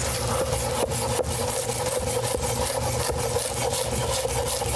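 Chef's knife chopping fresh parsley on a wooden cutting board: many short strokes of the blade knocking on the wood, over a steady low hum.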